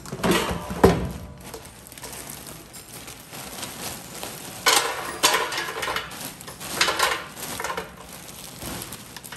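A Mondial Family air fryer's drawer basket pulled open with a clunk about a second in, then a plastic bag of frozen fries crinkling and the fries tumbling into the basket in a couple of bursts past the middle.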